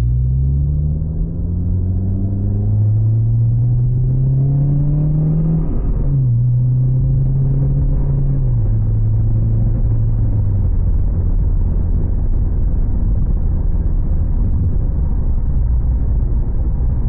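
2013 Honda Civic Si's four-cylinder engine through a Borla XR1 muffler with stock resonators, heard from inside the cabin: the exhaust note climbs in pitch under acceleration, breaks off at a gear change about six seconds in, steps lower a couple of seconds later, then settles into a steady low rumble at cruise.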